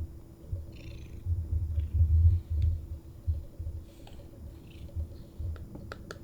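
Selkirk Rex kitten purring close by, in uneven pulses that are strongest in the first half. A few sharp clicks come near the end.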